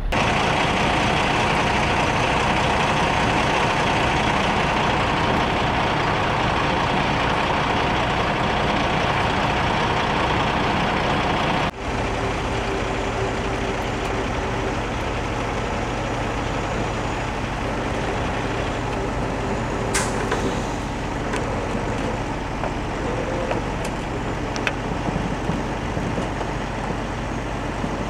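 Heavy diesel truck engines running, a steady loud drone. About twelve seconds in it changes abruptly to a lower, steadier engine drone, with a brief sharp high hiss around twenty seconds in.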